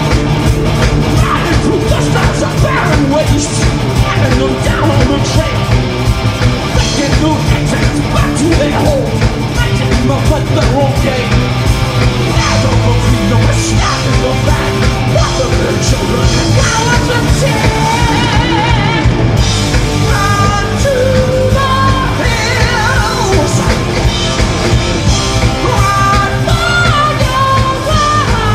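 A heavy metal band playing live and loud: drum kit, two electric guitars and bass guitar, with a singer belting and shouting the vocal line over them.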